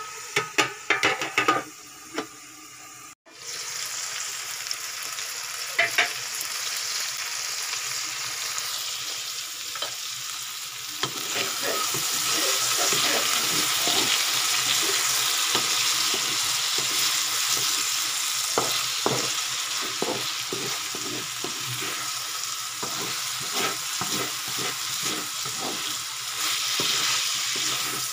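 Sliced eggplant frying in a wok, a steady sizzle, with a metal lid clattering on at the start. From about eleven seconds in the sizzle grows louder and a wooden spatula stirs and scrapes the vegetables in quick repeated strokes.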